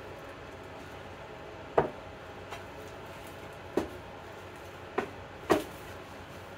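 Sharp knocks of hands striking the top of a dovetailed wooden box standing on a workbench, four hits with the last two close together, over a steady background hum.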